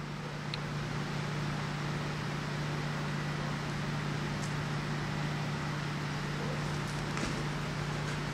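Steady low hum under an even hiss, with a few faint light ticks.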